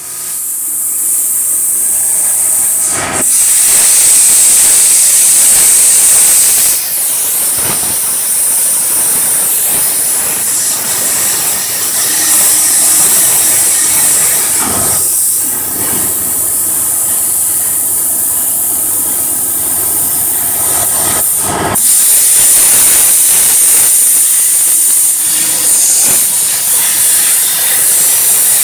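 CNC plasma cutting torch cutting metal plate, its arc giving a loud, steady hiss, strongest high up. Brief breaks and shifts in level come about three seconds in and again around seven and twenty-two seconds.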